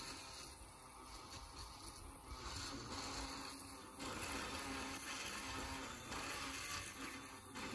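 Greenworks 80-volt cordless brushless tiller running, its tines churning through garden soil, the sound rising and falling in loudness every second or two as it is worked back and forth.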